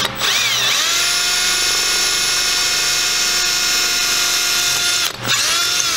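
Cordless drill boring a twist bit through a plastic chrome-plated headlight reflector. The motor whine rises as it spins up, holds steady for about five seconds, stops briefly, then spins up again near the end.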